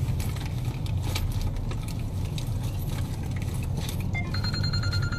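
Steady low rumble of a car's engine and road noise heard inside the cabin, with scattered light clicks. About four seconds in, a short electronic tone pattern starts up.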